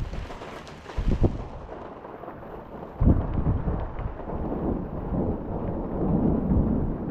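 Thunder: a short rumble about a second in, then a sudden louder clap about three seconds in that rolls on as a long low rumble.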